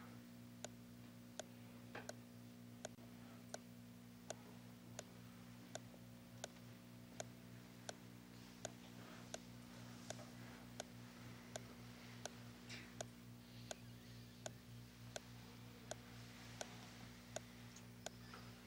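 Near silence with faint, evenly spaced ticking, about three ticks every two seconds, over a low steady electrical hum.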